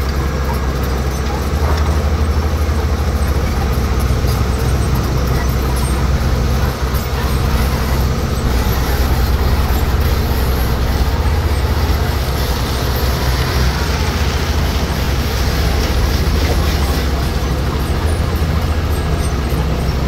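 Heavy earthmoving machine's diesel engine running steadily, a continuous low-pitched drone with mechanical noise over it.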